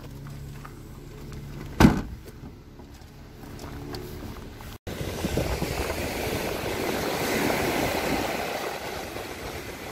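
A single loud thud about two seconds in, then from about five seconds ocean surf breaking on the beach, with wind buffeting the microphone.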